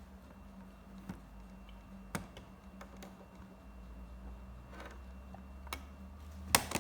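Scattered light clicks and taps from handling a laptop's plastic parts, about one a second, with a louder pair near the end, over a faint steady hum.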